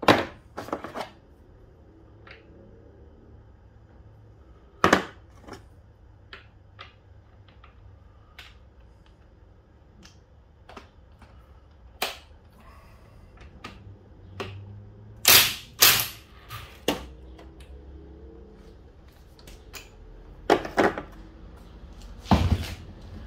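Scattered sharp metallic clanks and knocks of tools and engine parts being handled on a workbench. About fifteen seconds in come two brief loud bursts from a Ryobi cordless impact driver working a fastener on a motorcycle engine's cush drive.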